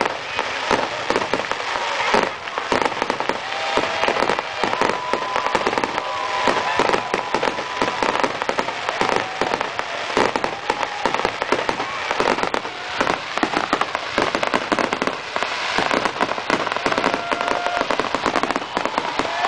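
Aerial fireworks display in a dense run: many rapid, overlapping bangs and crackles with no pause.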